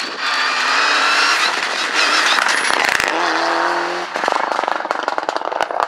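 Mitsubishi Lancer Evolution rally car with a turbocharged four-cylinder engine, running hard past on a lane. The engine note drops with a loud crack about three seconds in, then a rapid popping, crackling rattle follows as the car pulls away.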